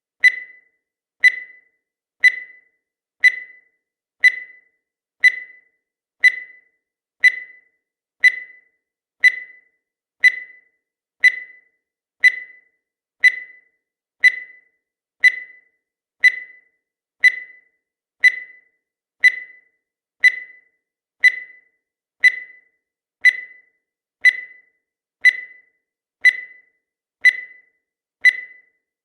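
Countdown timer sound effect: a short high-pitched beep once every second, each one dying away quickly.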